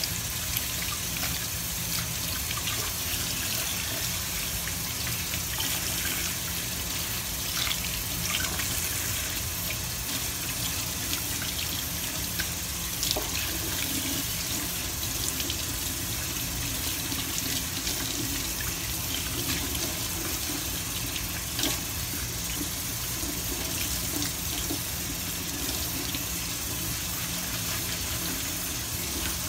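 Kitchen tap running steadily into a stainless steel sink while a bunch of greens is rinsed under the stream, water splashing off the stalks and hands, with a few brief louder splashes.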